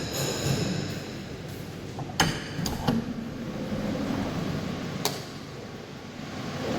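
Steady hum of the cold store's air-handling and refrigeration equipment. A ringing tone fades out in the first half second, and three sharp clicks or knocks come through: two close together about two seconds in and one around five seconds.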